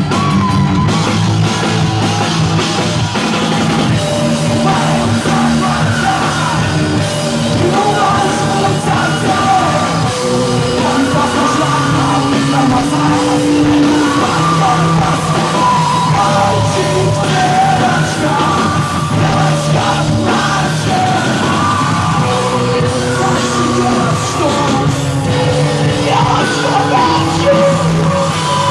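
Rock band playing live and loud, with yelled vocals over the music.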